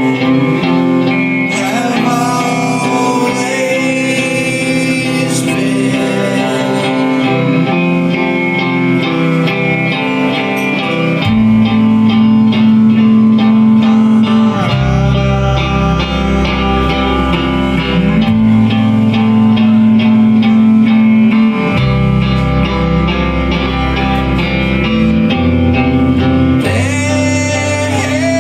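Live emo rock band playing: electric guitars and bass with vocals. The bass gets heavier about eleven seconds in, with long held notes changing every few seconds.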